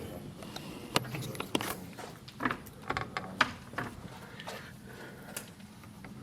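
A locked door being tried by hand: a string of irregular clicks and knocks as the handle and lock are worked. The door is double locked and does not give.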